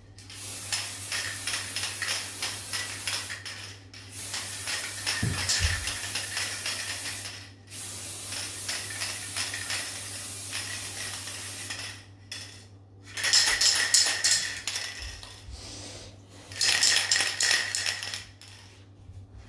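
Aerosol spray paint can spraying silver paint in several bursts of a few seconds each, a hiss with short pauses between.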